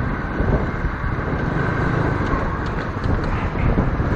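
Motorcycle engine running at low speed as the bike rolls slowly up to a fuel pump, with wind rumbling on the helmet-mounted microphone.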